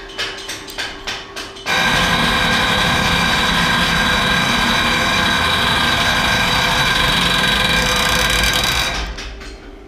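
Electric pump in a fire-fighting pump station switched on to build line pressure by hand. It starts abruptly with a loud, steady whir, runs for about seven seconds, then winds down. A few clicks and knocks come before it starts.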